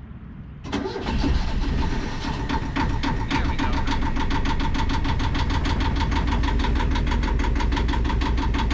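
A boat engine starts up under a second in, catching straight away, then settles into a steady idle with an even, rapid beat.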